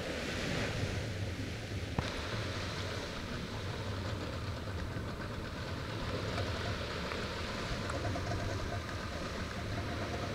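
Small waves lapping and breaking on a sandy beach, a steady wash of surf with wind rumbling on the microphone.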